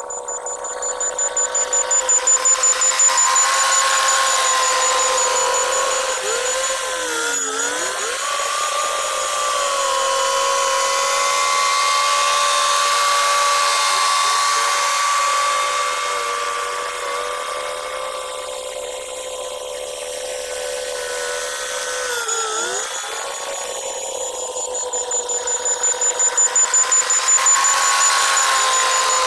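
Cat D6R2 crawler dozer working: a steady mechanical whine from its engine and drivetrain. The pitch sags briefly about 7 seconds in and again about 22 seconds in, as it takes load or changes direction. The sound swells and pulses rapidly early on and again near the end.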